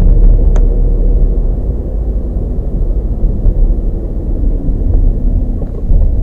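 Car driving, heard from inside the cabin: a steady low rumble of road and engine noise, with one short click about half a second in.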